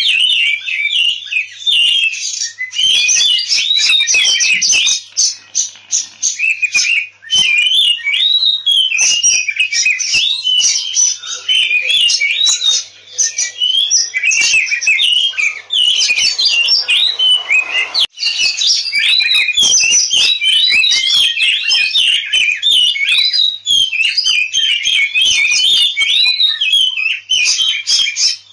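Oriental magpie-robin (kacer) singing a fast, almost unbroken run of varied whistles, trills and chattering notes, with only brief pauses. This is the agitated 'ngobra tarung' fighting song, played as a lure to rouse other kacer into singing.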